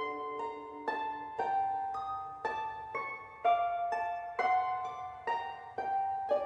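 Background music: a slow melody of single plucked notes, each starting sharply and ringing away, about one to two notes a second.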